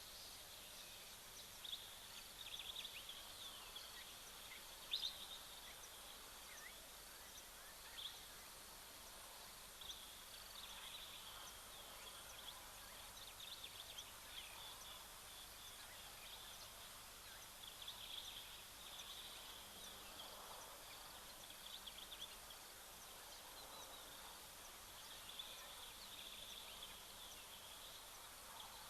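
Faint outdoor bush ambience with scattered short, high bird calls and chirps every few seconds.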